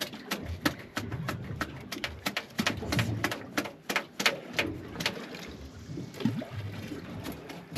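A quick run of sharp, irregular clicks and knocks, about three or four a second, thinning out about five seconds in, over a low rumble.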